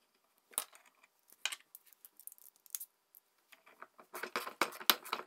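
Metal clinks and rattles of a small steel three-jaw gear puller being fitted over a ball bearing on an electric motor's shaft, ready to pull the bearing off. A few separate clinks come first, then a busier run of clicking from about four seconds in.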